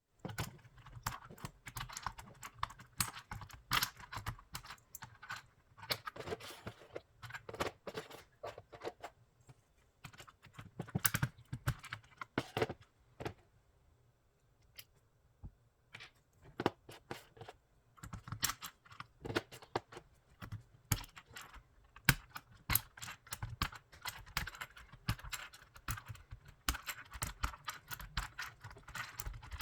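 Plastic keycaps being pulled off the switches of an aigo A108 hot-swap mechanical keyboard with a keycap puller: irregular clicks and plastic clatter, with a quieter pause of a couple of seconds a little past halfway.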